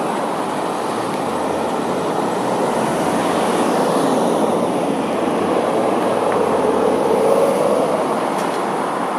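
Street traffic: a steady hum of car and van engines and tyres. A nearer vehicle's engine swells and fades about two-thirds of the way through.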